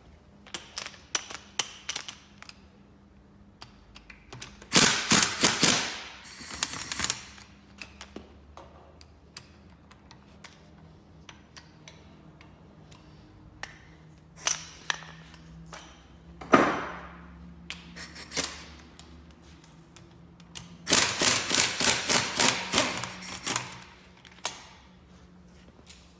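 Workshop hand-tool clatter: short runs of rapid clicking, densest about a fifth of the way in and again near the end, with one sharp knock that rings briefly a little after the middle.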